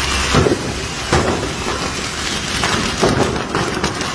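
Fireworks going off in a burning fireworks shop: a dense, irregular crackle of small explosions with several louder bangs among them.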